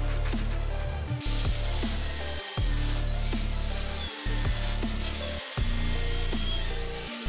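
Background music with a steady beat. About a second in, an angle grinder's cut-off disc starts cutting square steel tubing, a high-pitched whine over the music.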